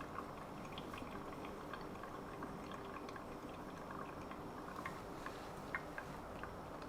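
Faint, steady trickle and drip of coffee from a pour-over coffee machine brewing, with a few small ticks.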